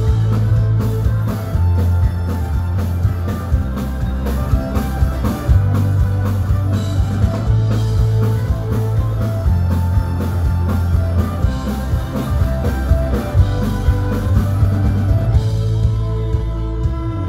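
Folk-punk band playing live through a club PA, an instrumental passage with drum kit, electric bass, acoustic guitars and fiddle, the drums keeping a steady beat over a heavy bass.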